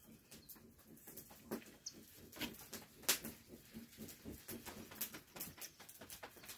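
Burning fire crackling, with irregular soft crackles and pops several times a second and one louder pop about three seconds in.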